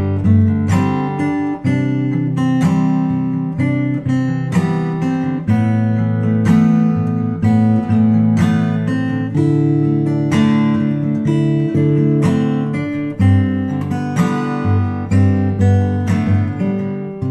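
Background music: an acoustic guitar strumming chords at a steady, even pace.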